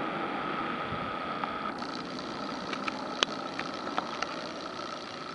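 Airbus A320's CFM56 turbofan engines heard from the ground as the airliner flies over on its landing approach and moves away: steady jet noise with a steady whining tone. A few short sharp clicks come from about two seconds in, one louder about three seconds in.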